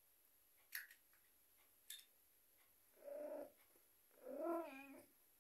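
A long-haired cat gives two low, wavering yowls, a short one about three seconds in and a longer, louder one just after: the grumbling of a cat in a bad mood. Two sharp clicks come before them.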